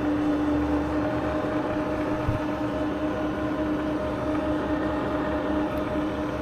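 Bridgeport Series I 2 HP milling machine head running, its motor and variable-speed spindle drive giving a steady hum with a constant tone. There is one brief low knock about two seconds in.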